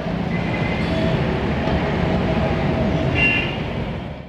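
An electric tram running along street track: a steady rail rumble with a faint whine, and a short shrill tone about three seconds in. The sound fades out at the very end.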